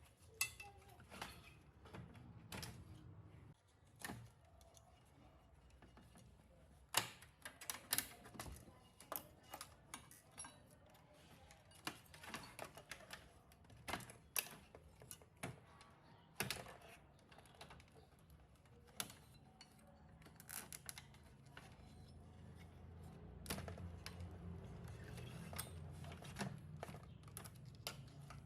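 Irregular small clicks and taps of hand work with tools and small parts. A low hum grows louder in the second half.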